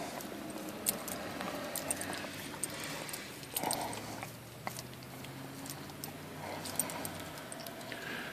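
A collie licking a vanilla ice cream cone: a run of small wet licking and smacking clicks, over a faint low hum.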